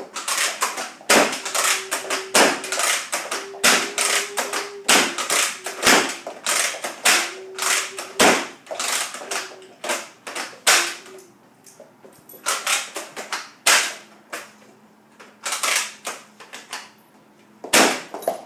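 Toy ball-firing blaster pistol shot over and over: a long, uneven run of sharp snapping clicks, often two or three in quick succession, with short pauses between bursts.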